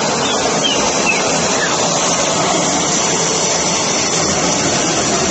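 CNC aluminium profile cutting saw running: a steady, loud machine noise with a hiss, and a few brief falling whistles in the first two seconds.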